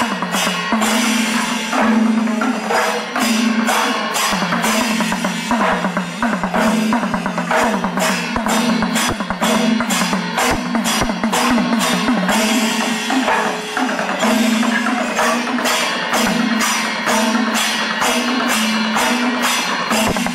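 Percussion-heavy music: rapid drum strokes over a sustained, droning tone.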